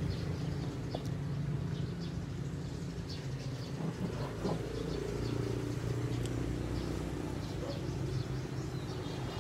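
A motor running steadily with a low, even hum, with faint short high ticks scattered over it.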